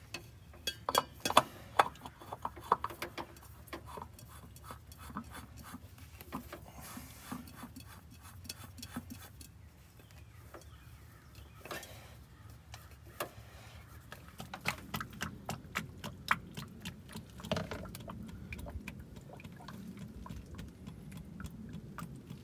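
Clicks and light metal taps as a new spin-on filter is handled and threaded onto a Kubota tractor by hand. Later, fluid pours from a tipped pail into a filler funnel on the tractor, with more scattered clicks over a steady low pouring sound.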